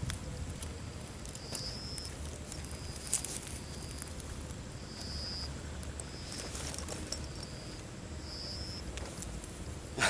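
An insect chirping: short, high, even-pitched chirps about once a second. A few rustles and steps in dry grass come in around the middle.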